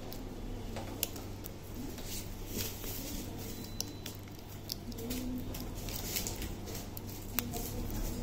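Faint handling sounds: a few scattered sharp clicks and taps as a 9-volt battery is fitted to its snap-on battery clip, over a low steady hum.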